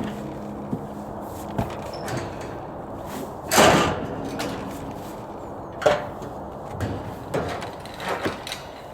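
A few scattered knocks and bangs, the loudest a little over three seconds in and another about two seconds later.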